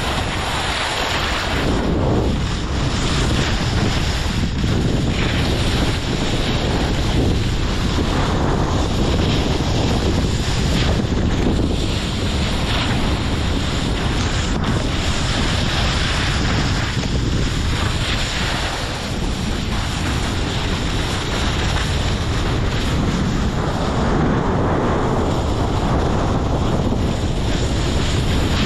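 Heavy wind noise buffeting the microphone, a loud steady rushing that swells and eases every few seconds, as from a camera carried downhill on skis.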